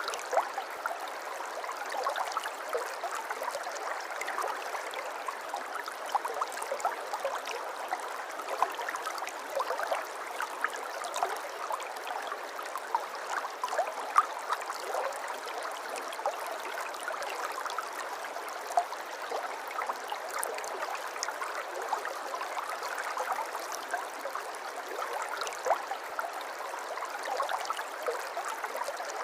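A river flowing: a steady babble of running water with frequent small splashes and gurgles.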